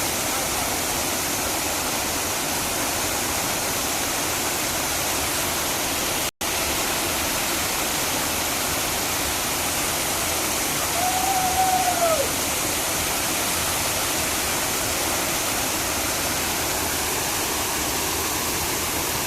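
Steady, dense rush of a waterfall, with a momentary break to silence about six seconds in. Around eleven seconds a short pitched call rises and then falls over the water noise.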